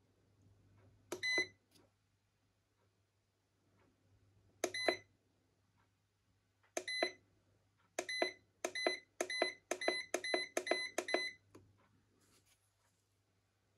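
Electronic beeps from a foot spa massager's control panel as its buttons are pressed: a few single beeps, then a quick run of about eight as the temperature setting is stepped up. A faint low hum runs underneath.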